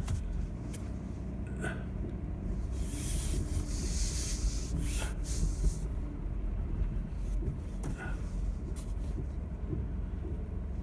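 Pickup truck running slowly, a steady low rumble heard from inside the cab, with a brief rush of hiss about three seconds in.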